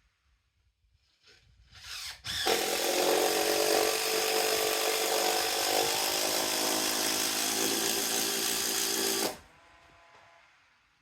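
Petrol chainsaw engine giving a few short bursts, then running steadily for about seven seconds before cutting off suddenly. The saw has been struggling, which the owner puts down to a shortage of air or of fuel getting through.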